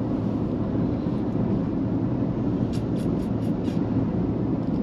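Steady road and engine noise of a car cruising on the highway, heard from inside the cabin, with a quick run of about five light ticks about three seconds in.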